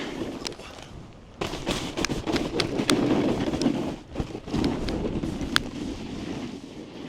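Snowboard riding over snow, picked up by the rider's body-worn mic: a rough scraping and sliding, quieter for about the first second and a half, then with many sharp clicks and knocks from the board and gear.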